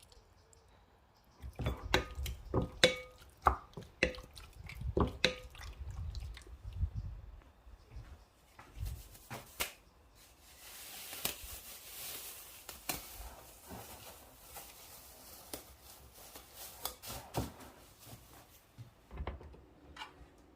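Household handling sounds: a quick run of knocks and clinks, some ringing briefly like dishes or utensils touching, then a few seconds of steady hiss in the middle, then more scattered knocks.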